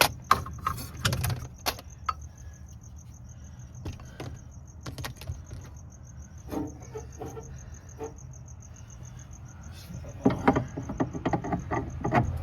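A cricket trilling steadily over a low hum, with scattered clicks, knocks and clatter of hand work. The clicks and knocks come thickest in the first two seconds and again near the end.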